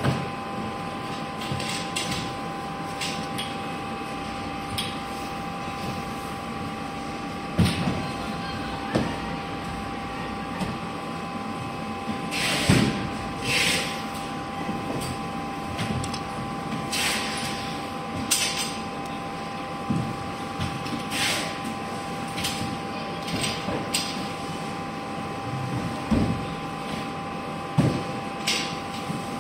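Small plastic decoy gearbox parts being handled and fitted together by hand: scattered clicks and taps with short scraping rustles, over a steady background hum with a few held tones.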